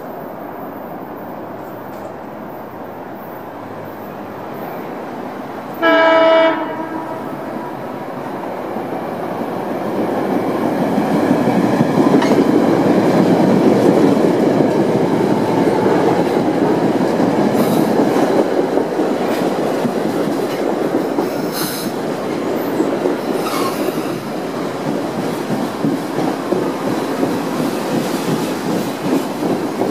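Metro-North New Haven Line electric train sounding one short horn blast about six seconds in, then running close past: a rush of wheels on rail that builds and stays loud, with a few sharp clicks.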